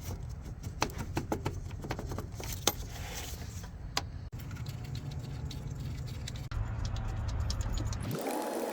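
Metal clicks, taps and light rattling as a replacement car starter motor is wiggled back into its mounting, over a steady low hum. The clicks are densest in the first few seconds, and the background changes abruptly a few times.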